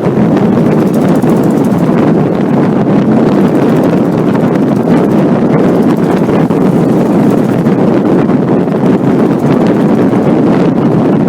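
Air-cooled flat-four engine of a 1969 VW Beetle 1500 running loud and steady under way, its exhaust blaring through a gap where a muffler pipe's weld has broken away from the heat exchanger. Wind noise runs under it.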